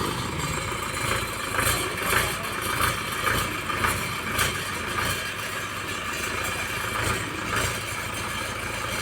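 A vehicle engine idling steadily, with a run of sharp knocks and clatters over the first half and a couple more later on.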